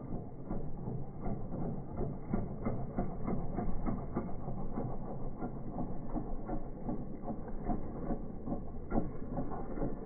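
Slowed-down sound of a large RC scale Wilga tow plane's engine as it lands and rolls out: a low rumble with a dense, irregular clatter of clicks.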